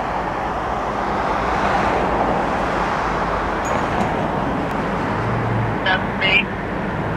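Road traffic on a busy multi-lane city street: a steady wash of car engines and tyres. Two short high-pitched chirps cut through near the end.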